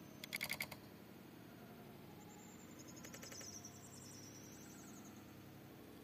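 Common myna's beak pecking at food on a stone slab close to the microphone: a quick run of sharp taps near the start, and a fainter run about three seconds in.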